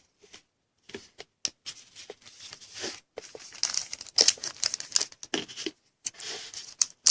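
Trading card pack wrapper crinkling and tearing as a 2016 Panini Phoenix Football pack is handled and opened, in irregular rustling crackles that are loudest about four seconds in and near the end.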